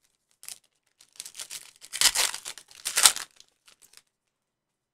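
Foil wrapper of a Panini Prizm football card pack being torn open and crinkled in a run of crackles, loudest about two and three seconds in.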